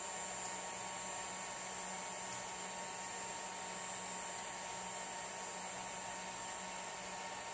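Hot air rework gun blowing steadily onto a circuit board to desolder a power switch: an even airflow hiss with a faint steady hum.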